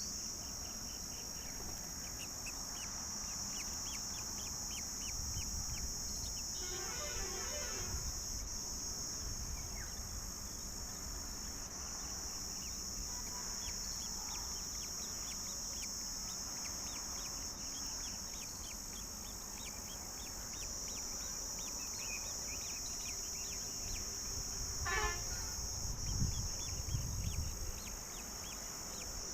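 A steady, high-pitched insect drone in the background with short bird calls twice, about a quarter of the way in and near the end. A few low bumps come near the end.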